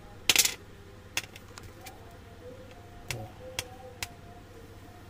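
Small steel bolts clicking against a ring magnet and the tabletop during a magnet test to tell stainless from plain steel: a few sharp clicks, the loudest about a third of a second in.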